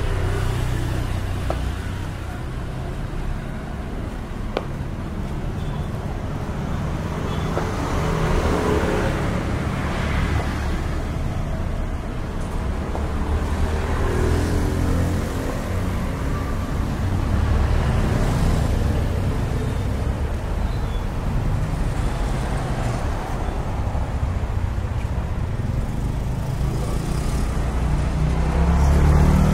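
Street traffic: passing cars making a low engine and tyre rumble that swells and fades as each goes by, loudest near the end.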